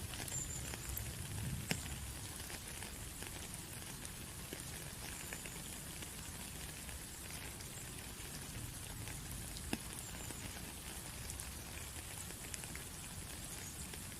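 Rain falling in a steady patter, with individual drops ticking throughout and two sharper drip hits, one about two seconds in and one about ten seconds in.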